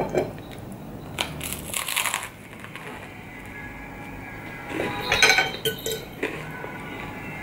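Eating at the table: crusty bread crunches a second or so in, then a metal fork clinks and scrapes against a ceramic plate around five seconds in.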